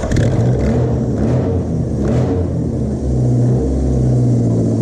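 The four-cylinder engine of a Mazda MX-5, just swapped in, running unevenly with its pitch stepping up and down. It is being brought to life after a fuel-feed problem and is not yet settled.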